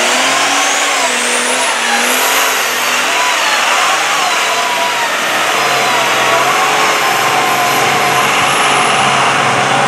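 Mega mud truck's engine running hard at high revs, its pitch wavering up and down as the paddle tires churn through deep mud, with a high whine climbing over the first couple of seconds.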